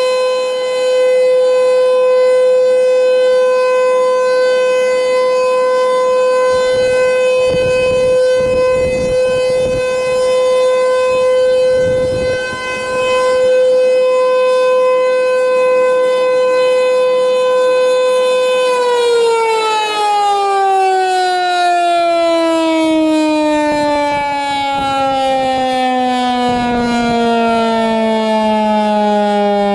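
Tornado warning siren sounding a test, holding one steady tone with many overtones. About two-thirds of the way through it winds down, its pitch falling smoothly and steadily.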